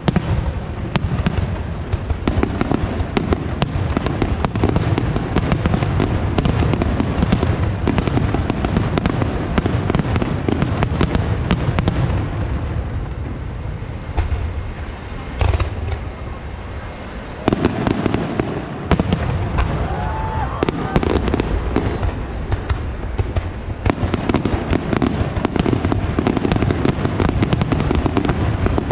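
Star-mine fireworks barrage: aerial shells going off in rapid, overlapping bursts. About halfway through it thins out for a few seconds to a single heavy boom, then builds back to a dense barrage.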